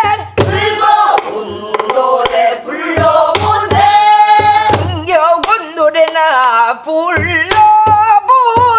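A woman singing a Korean folk song in a strong, wavering voice, accompanying herself on a buk barrel drum, whose low strokes fall between and under her phrases.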